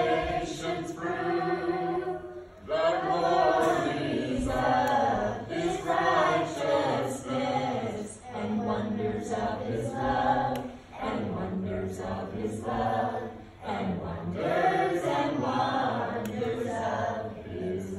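Children's choir singing together, in phrases with short breaths between them, trailing off near the end.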